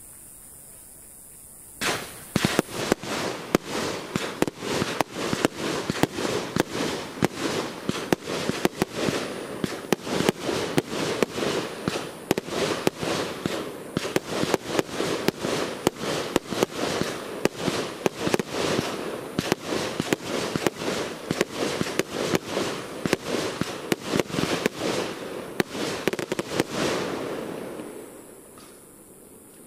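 Aerial fireworks barrage: a rapid string of sharp bangs, several a second, over a continuous rumble. It starts suddenly about two seconds in and dies away near the end.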